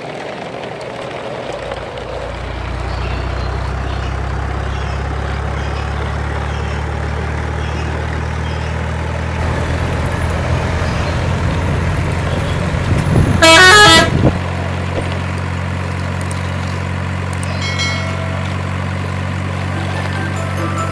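Heavy truck engine sound effect running steadily, with one loud horn toot lasting about a second a little past the middle.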